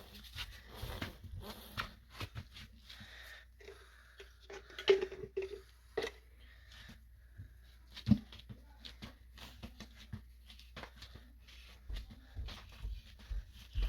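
Faint, irregular scraping and rustling of a brush dabbing old engine oil along a tire bead and rusted steel rim to seal a slow bead leak, with a few soft knocks about five, six and eight seconds in.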